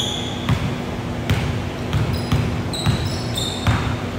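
A basketball is dribbled on a hardwood gym floor, about six bounces at an uneven pace. Short high squeaks, likely sneakers on the court, come between some of the bounces.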